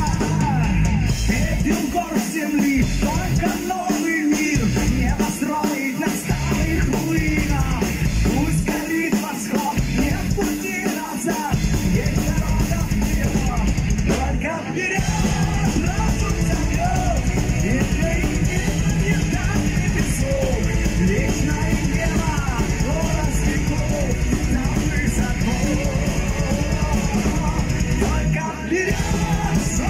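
Live rock band playing loudly: a singer over distorted electric guitars, bass and drum kit. For the first twelve seconds or so the bass and drums drop out in short breaks, then the full band plays on steadily.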